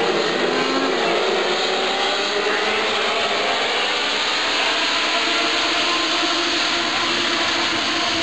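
A pack of Legend race cars at racing speed, their Yamaha four-cylinder motorcycle engines running hard together. The result is a steady, dense wall of engine noise in which several engine notes slowly shift in pitch as cars pass and come through the turns.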